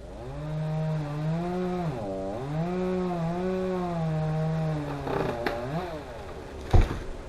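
Chainsaw running at high revs, its pitch dipping briefly and recovering, then dropping away about five seconds in. A loud thump comes near the end.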